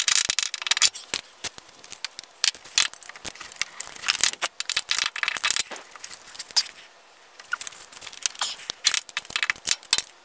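Irregular metallic clicking and rattling of hand tools and bolts as a water pump's mounting bolts are started by hand, with a short pause about seven seconds in.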